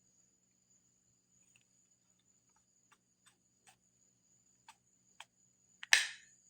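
A handful of light clicks spaced irregularly, then one loud, sharp pop with a short hissing tail near the end.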